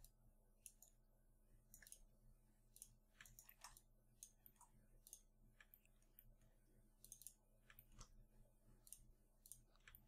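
Faint, irregular clicks from a computer mouse and keyboard during painting work at the computer, over a low steady electrical hum.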